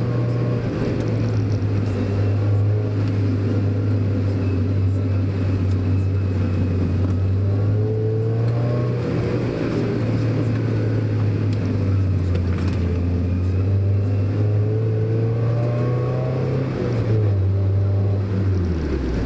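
Mazda Roadster's four-cylinder engine running steadily under way, with tyre and road noise; the engine note dips briefly about halfway through and falls in two steps near the end as the car slows.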